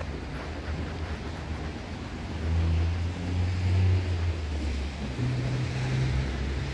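Passing road traffic: a low engine hum that swells to its loudest in the middle, over a hiss of tyres.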